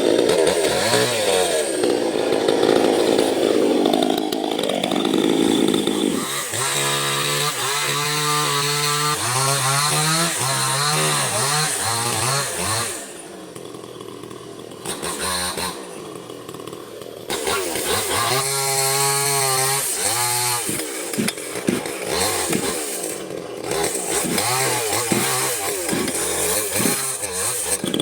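Small chainsaw running and cutting mahogany wood, its engine pitch rising and falling as it revs. About halfway through it drops to a quieter idle for a few seconds, then revs up again.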